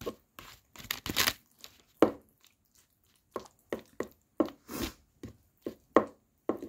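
Plastic fork scraping and clicking against a plastic ready-meal tray while eating, a run of short, irregular scrapes and taps.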